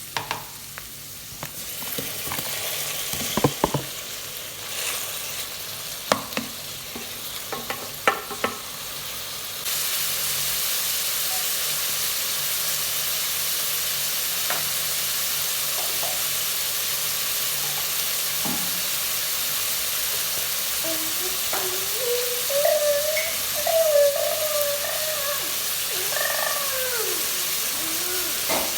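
Food frying in hot oil with a steady sizzle that turns louder about ten seconds in, with clicks and clatters of stirring early on. A wavering higher tone comes in near the end.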